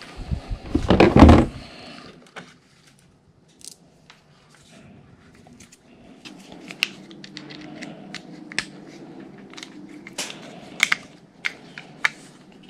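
Hands handling a thin steel steering cable and small tools: a loud handling clatter about a second in, then scattered small metallic clicks and ticks as the wire and parts are worked.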